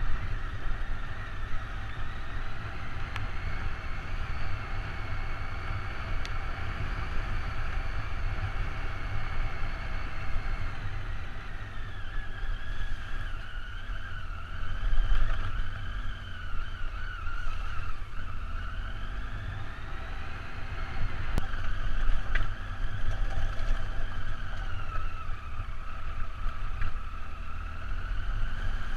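Motorcycle engine running on a rough gravel track, its pitch holding, then sinking and rising again as the throttle is opened and closed, over a steady low rumble. A couple of sharp knocks come about two-thirds of the way through.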